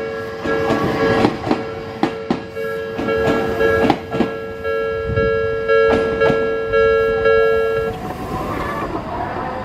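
Wheels of an Odakyu 3000-series train clacking over rail joints, with a level-crossing warning bell ringing in steady repeated tones. The bell cuts off suddenly about eight seconds in, as the crossing clears.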